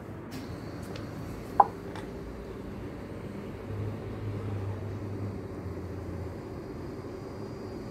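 Steady low background hum, swelling for a couple of seconds near the middle, with one sharp short click about a second and a half in.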